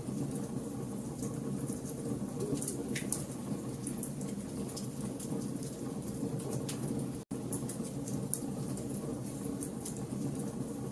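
Campfire of burning logs: a steady low rumble of flames with irregular sharp crackles and pops. The sound cuts out for an instant about seven seconds in.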